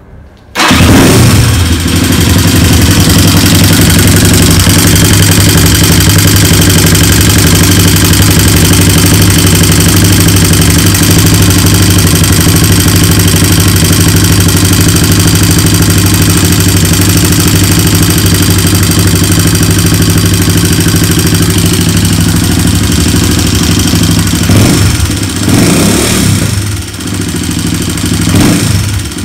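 Freshly rebuilt small single-cylinder four-stroke motorcycle engine, with a new piston and rings, starting about half a second in and idling loudly and steadily, then revved a few times near the end. It runs with a knock that the owner cannot place and that does not go away with throttle; he suspects the chain or the starter's overrunning clutch.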